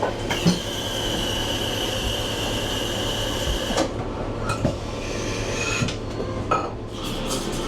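Coffee shop interior noise: a steady high hissing whine lasting about three and a half seconds, then scattered clinks of cups and dishes over a low hum.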